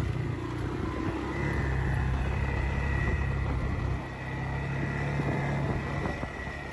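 ATV (quad) engine running steadily as it drives along a rocky dirt track, with a thin, steady high whine above the engine.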